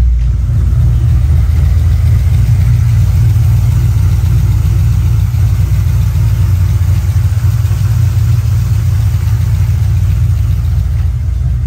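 Turbo SN95 Mustang engine idling with its Chevy Volt electric radiator fans running at operating temperature, a steady rush of air over a low rumble.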